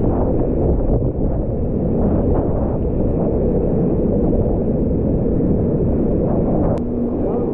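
Whitewater rapids rushing and crashing around a kayak, heard at the water's surface as a steady, dull, deep rush with no high hiss. A short sharp click comes near the end.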